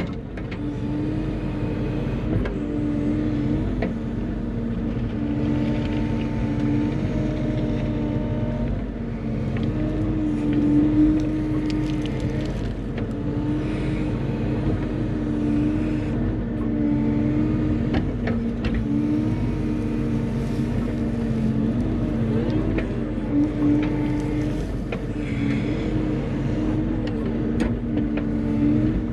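Bobcat E35 mini excavator's diesel engine running steadily under load as it digs, its pitch dipping and wavering every few seconds as the hydraulics are worked, with a few sharp knocks from the bucket and tracks.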